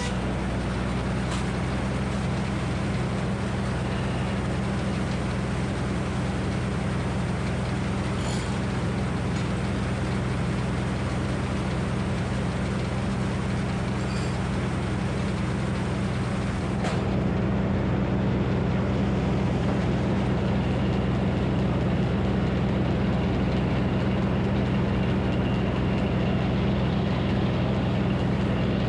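Minneapolis Moline HEB 605 cubic inch engine running the sawmill steadily, a little louder from about two-thirds of the way through.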